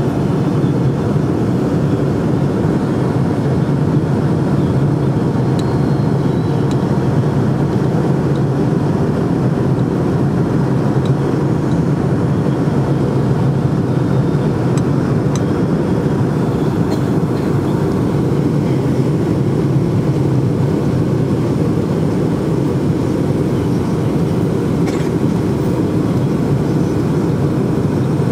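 Steady rumble of jet engines and airflow heard inside the passenger cabin of a Boeing 757-200, even in level throughout.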